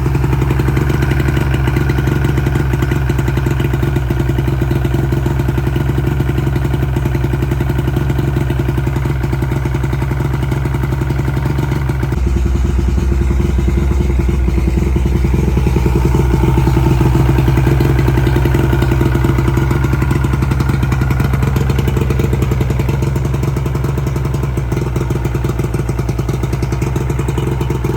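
Three-cylinder outboard motor running steadily, its note shifting about halfway through. It runs at very high revs that could not be brought down, which the owner puts down to a carburettor that floods and burns too much fuel.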